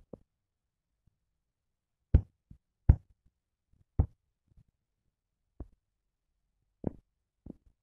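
Scattered soft knocks and taps, about eight of them at uneven intervals, with near silence between. The loudest two come a little after two seconds and just before three seconds in, and a sharper one comes about four seconds in.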